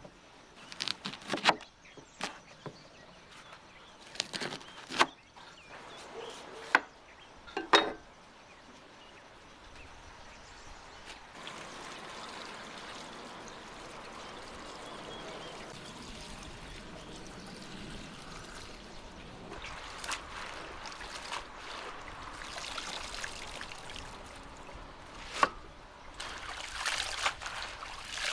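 A cleaver striking a wooden cutting board a dozen or so times at an irregular pace. Then water pours steadily from a copper jug into a copper basin of leafy greens, followed by hands swishing and squeezing the greens in the water, with a sharp splash near the end.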